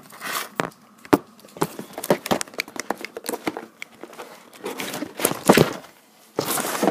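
Close handling noise: irregular knocks, clicks and crinkling rustles as the camera is set down and a cardboard model-kit box is opened and its plastic-bagged parts are moved about.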